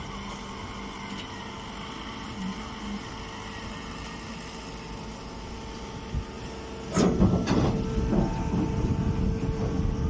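Hydraulic straw baler running with a steady hum of its motor and pump. About seven seconds in comes a sudden loud clank, then a few seconds of rough scraping and rustling as a compressed straw bale is pushed out into a woven bag.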